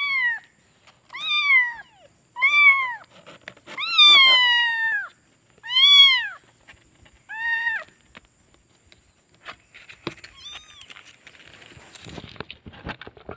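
Kitten meowing six times, high calls about a second and a half apart, each rising then falling in pitch, the fourth held longest. After that comes a faint call, then rustling and handling noise near the end.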